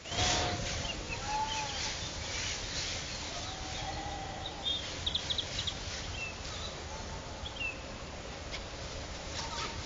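Several short animal calls that rise and fall in pitch, with a quick run of high chirps about halfway through, over a steady hiss from the trail camera's microphone.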